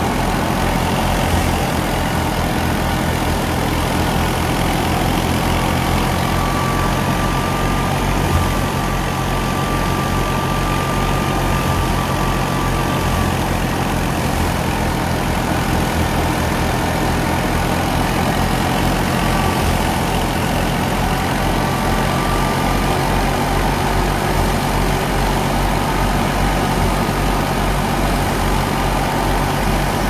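Ghazi tractor's diesel engine running steadily under load, driving a wheat thresher through its PTO shaft and belts, with the thresher's drum and sieves adding a constant mechanical drone. A faint thin high whine comes in twice for a few seconds.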